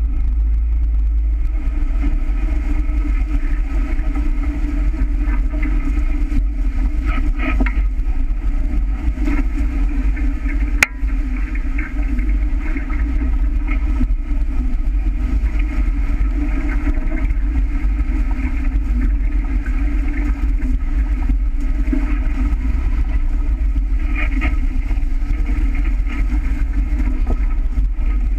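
Steady rush of water along a sailing catamaran's hull and wind buffeting the microphone as the boat sails fast, spray flying off the bow, with a heavy low rumble. One sharp click about eleven seconds in.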